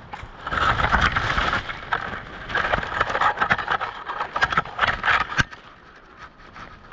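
Close rustling and scraping of clothing and gear moving against the ground, a dense crackly noise that dies down with a single sharp click about five and a half seconds in.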